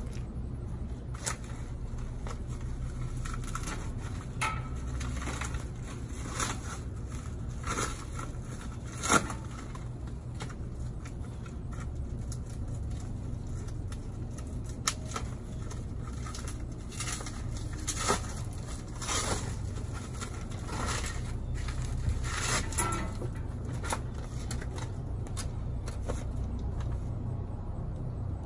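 Hand-assembly noises on a Weber Genesis II LX gas grill: scattered clicks, knocks and scrapes of metal parts being handled and fitted, with the sharpest knock about nine seconds in, and some paper rustling, over a steady low rumble.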